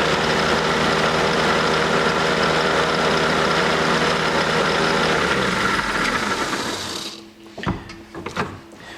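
Craftsman 618 metal lathe running at its top speed, with the 3/4 horsepower motor and link-belt drive making a steady whirring whine. About five seconds in it is switched off and spins down, falling in pitch to a stop by about seven seconds. A few sharp clicks and knocks follow near the end.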